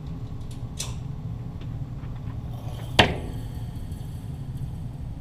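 A single sharp .22 target-pistol shot about three seconds in, over a steady low rumble, with a fainter click about a second in.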